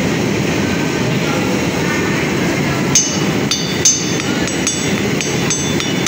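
Gas torch burner running steadily into a coke forge fire. From about three seconds in, a quick run of ringing metal-on-metal strikes, about three a second, like hammer blows on steel, with two louder ones near the start.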